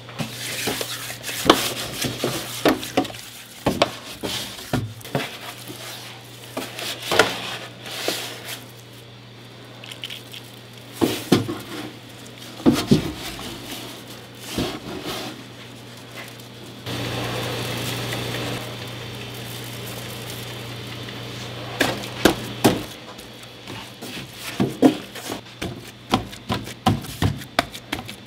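Kitchen prep work: irregular knocks, thuds and clinks of tools and meat being handled on a work surface, over a steady low hum. A steady hiss runs for about three seconds just past halfway.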